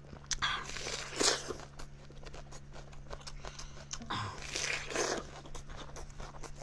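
Crunchy bites into a whole raw red onion, then chewing with wet mouth clicks, over a steady low hum.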